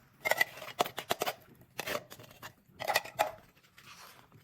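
Metal cat-food tins clinking and scraping on a hard surface, in irregular clusters of light taps and rattles that die down near the end.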